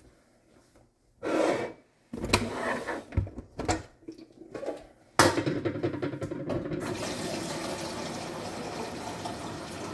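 A few knocks and clunks of handling, then a kitchen tap turned on about halfway through, with water running steadily into a container as it fills.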